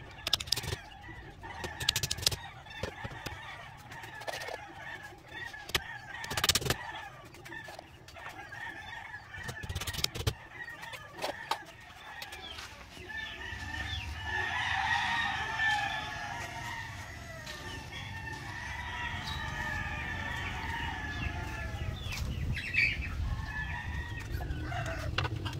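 Farmyard chickens clucking and a rooster crowing, with several sharp knocks in the first half.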